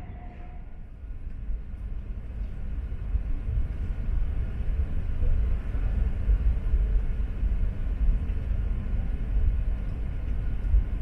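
Low rumble of an E4 series double-deck Shinkansen heard from inside the passenger cabin as it pulls out of a station. It grows louder over the first several seconds as the train picks up speed.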